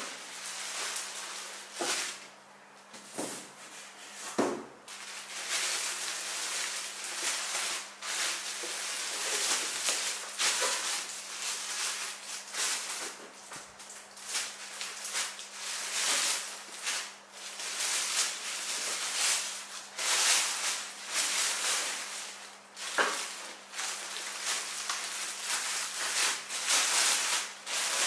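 Thin clear plastic bag crinkling and rustling in irregular bursts as it is pulled and worked off a padded fabric carry case, with a few light knocks.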